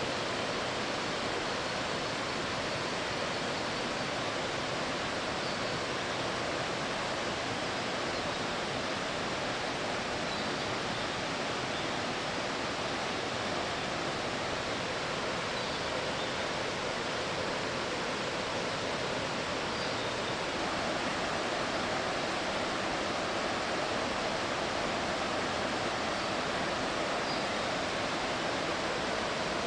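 Waterfall pouring steadily: a continuous rush of falling water that grows a little louder about two-thirds of the way in.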